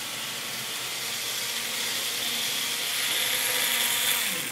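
N-scale model locomotive running on the track: a steady hiss and whir of its small electric motor and wheels on the rails, growing a little louder as it approaches. Near the end the pitch falls as it slows to a stop when the track power is cut at the station.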